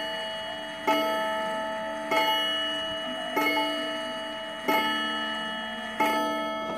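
Gold Cup Japanese pendulum wall clock striking six o'clock, five strikes heard here about 1.3 seconds apart. Each strike rings with several tones and fades slowly before the next.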